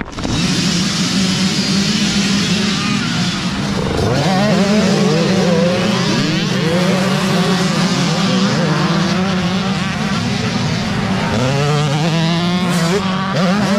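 A pack of youth dirt bikes accelerating together at a mass race start, many engines revving at once. One bike is close by, its pitch rising through the gears about four seconds in and again near the end.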